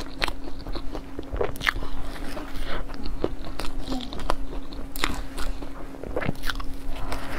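Biting into and chewing a cream puff: a run of irregular crisp crackles and clicks from the shell, over a steady low hum.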